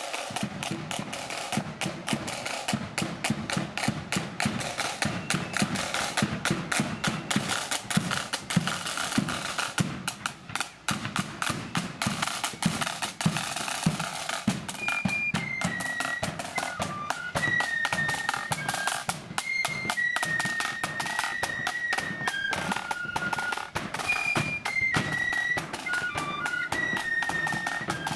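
A marching flute band: snare and bass drums play on their own for about fifteen seconds, then the flutes come in with a high melody over the drums.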